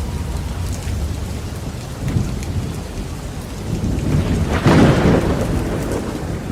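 Steady heavy rain with low thunder rumbling under it. A louder roll of thunder swells up about four and a half seconds in and fades over the next second or two.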